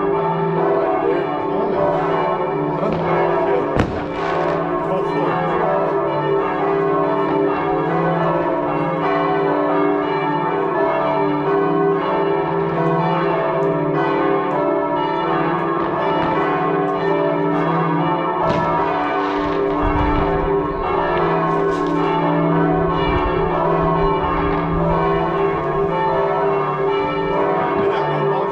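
Church bells ringing on and on, several bells overlapping, ringing in the new year. A few sharp firework bangs and low thumps sound over them, one crack about four seconds in and more in the second half.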